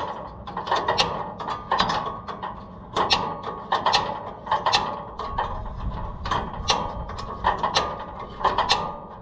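A wrench working a nut off a carriage bolt on the combine's sheet-metal frame: irregular metal-on-metal clicks, often two or three close together, as the wrench is swung and reset on the nut.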